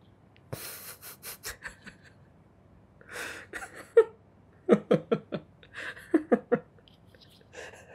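A man laughing under his breath: breathy huffs and snickers, then two short runs of quick voiced laugh pulses about five and six seconds in.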